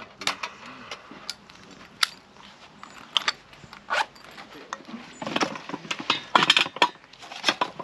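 Irregular clicks and light clatter of small hard objects being handled, with a quicker run of rattling clicks about five to seven seconds in.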